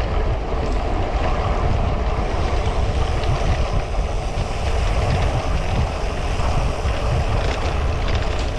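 Steady wind rush on the microphone of a cyclist riding at speed, mixed with the rolling noise of a cyclocross bike's tyres on a path.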